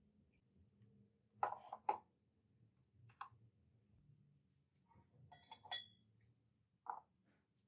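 Glass beakers and lab glassware being handled and set down on a table: a handful of separate faint knocks and clinks, one of them ringing briefly like struck glass.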